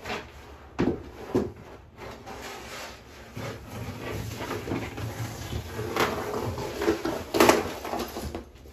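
Old sheet vinyl flooring being pulled up off the subfloor and handled: scraping and crackling rustle with several sharp knocks. Two knocks come about a second in, and louder ones come around six and seven and a half seconds in.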